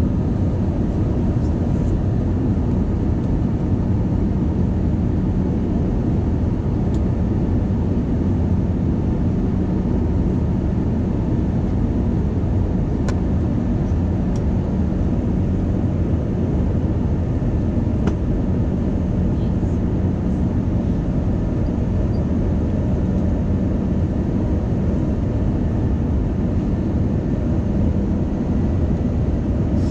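Steady low rumble of a jet airliner heard from inside the cabin in flight: turbofan engine and airflow noise at an even level. A few faint clicks are heard near the middle.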